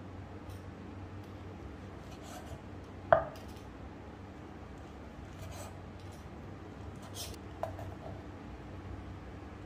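Chef's knife slicing roasted meat on a wooden cutting board: short scraping slicing strokes, with a sharp knock on the board about three seconds in and a lighter knock later, over a low steady hum.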